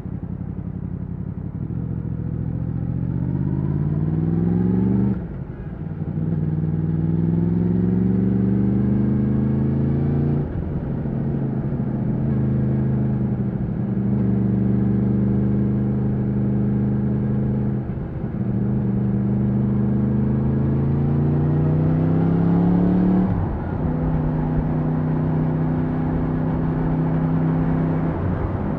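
2020 Yamaha MT-10's crossplane inline-four through its stock exhaust, pulling hard with the engine note climbing in pitch, then dropping briefly at each of several upshifts. In between it holds an even note at steady speed for a few seconds.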